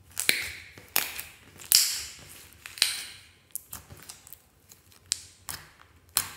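Glossy slime being pressed and poked by hands on a table, giving a series of sharp pops and clicks, roughly one every half second to a second, the loudest a little under two seconds in.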